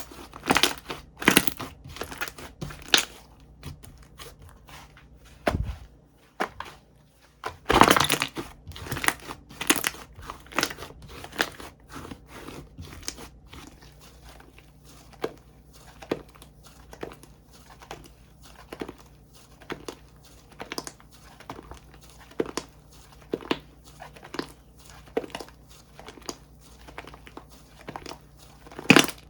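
Hands squeezing, stretching and poking slime, making irregular sticky clicks, crackles and small pops, with a few louder pops about a second in and about eight seconds in.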